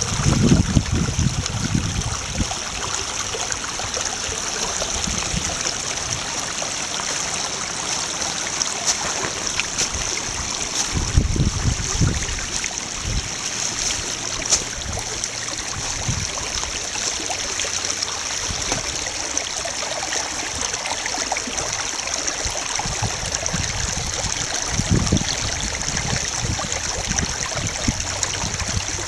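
Small snow-melt brook babbling and trickling over gravel, a steady rush of running water, with a few brief low rumbles.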